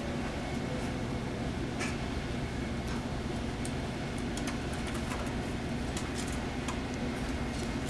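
Steady low hum with faint, scattered light clicks and taps from kittens' paws and claws scrabbling on a concrete floor and a plastic crate.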